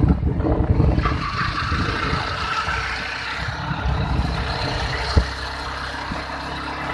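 Sport motorcycle riding along: the engine running under a steady rush of wind over the microphone, with a single sharp knock about five seconds in.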